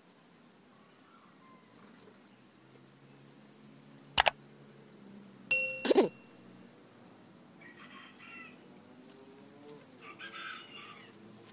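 A sharp metallic click about four seconds in, then a brief ringing clink a second and a half later, from bonsai wire being handled. Birds chirp twice near the end.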